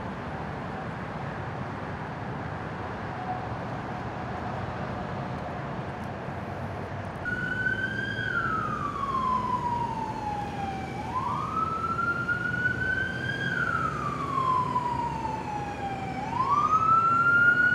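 Emergency vehicle siren wailing, its pitch falling slowly and rising quickly, about twice, and growing louder near the end; before it, about seven seconds of low street noise with a faint distant siren tone.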